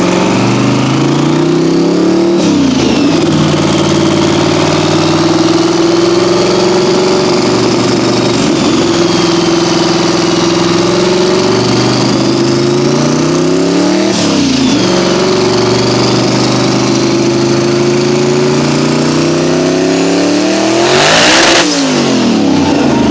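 Loud high-horsepower car engine running hard at length, its pitch dipping sharply and climbing again three times, with a short loud hiss near the end.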